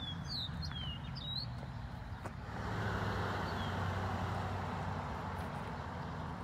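Footsteps on gravel with small birds chirping in the first second or so; about two and a half seconds in, a louder steady rush of a vehicle passing on the road swells up and holds.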